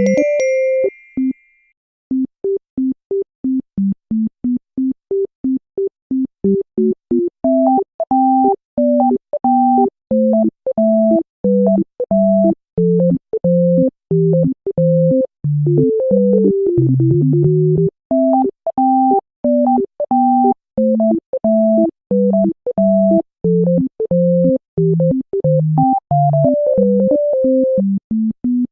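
Background music: a light synthesizer tune of short, evenly spaced notes. It breaks off for a moment about a second in, then comes back as a bouncy keyboard melody that gains higher notes partway through.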